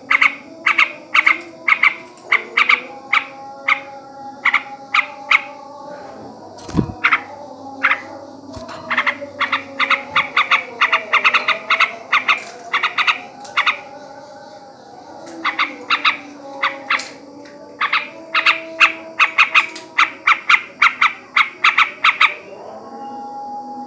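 Male sooty-headed bulbul (trucukan) chattering: runs of short, sharp notes, several a second, with a brief lull about two-thirds of the way through, over fainter lower sliding tones.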